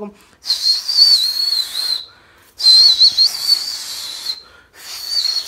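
A man whistling loudly through his fingers: three shrill, wavering blasts, the first two about a second and a half long, the third cut off near the end. It imitates the whistle a street gang of muggers uses as a signal to close in on a victim.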